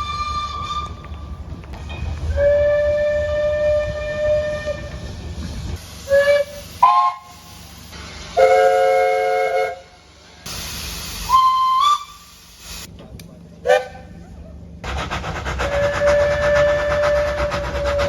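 Train horns sounding in a run of short clips cut together: long and short blasts, most a single note, one in the middle a chord of several notes, with abrupt cuts between them. Under the last long blast near the end runs the rumble of a moving train.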